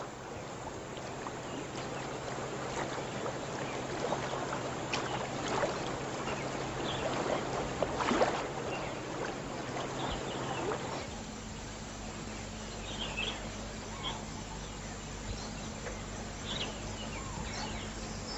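Water splashing and sloshing for about eleven seconds, then a quieter outdoor background with a few short, high bird chirps.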